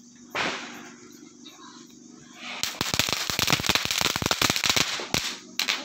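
A ground firework spraying sparks: a short fizz as it catches, then about two and a half seconds in a loud, dense crackling hiss that dies away after a few seconds, followed by a few separate cracks near the end.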